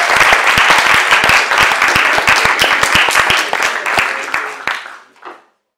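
Audience applauding with many overlapping claps. The applause thins out near the end and cuts off abruptly.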